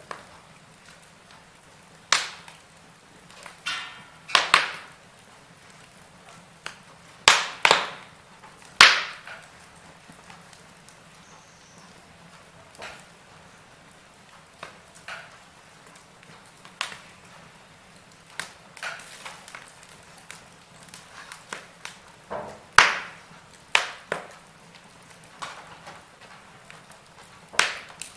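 Wood fire in a fireplace crackling: irregular sharp pops and snaps, a few of them loud, over a faint steady hiss.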